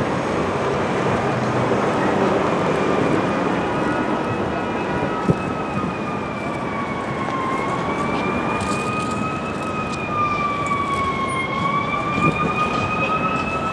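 An emergency vehicle's siren wailing, its pitch slowly rising and falling and growing stronger after about five seconds, over a steady hum of street traffic.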